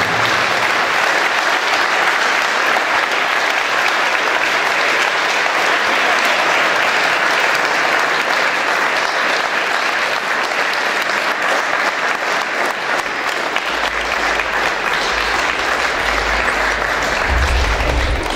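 A crowd applauding steadily. Low thumps come in during the last few seconds.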